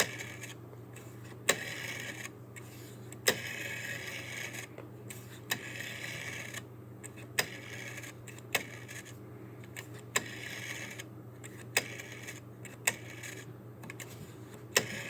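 Rotary telephone dial being wound and released digit after digit: a sharp click about every one to two seconds, with the whirring, clicking return of the dial between them as it sends its dial pulses.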